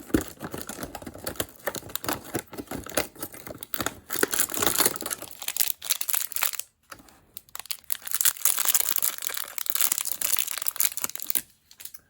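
A small blind bag crinkling and tearing as it is opened by hand, in a dense run of crackles with two brief pauses, one about halfway and one near the end.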